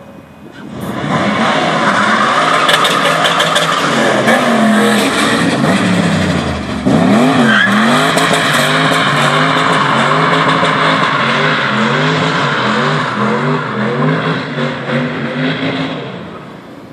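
Turbocharged BMW M60 4.0-litre V8 in a Volvo 745 revving hard while the rear tyres spin and squeal in a long burnout. From about seven seconds in the revs rise and fall again and again. Engine and tyres fade out near the end.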